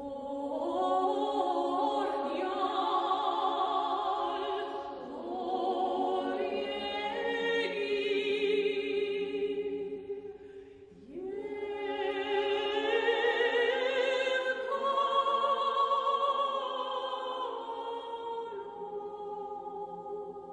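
An Armenian hymn sung slowly, with vibrato, in two long held phrases. There is a short break between them about ten seconds in.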